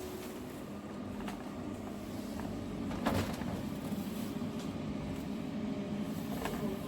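A steady low machine hum with a few light clicks and a knock about three seconds in.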